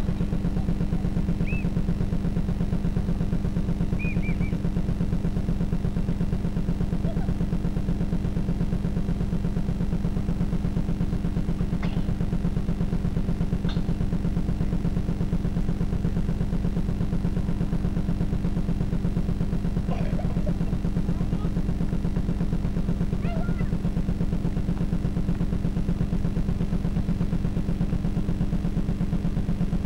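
A steady low-pitched buzzing hum at an unchanging level, with a few faint short high chirps over it.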